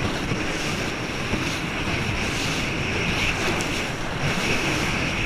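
Boat underway: a steady rush of water along the hull, with wind buffeting the microphone.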